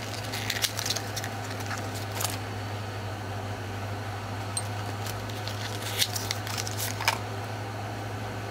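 Handling noise as glass ink bottles and small cardboard boxes are picked up and moved over crinkly plastic wrap: a few light clicks and crackles, the sharpest about two seconds in and near the end, over a steady low hum.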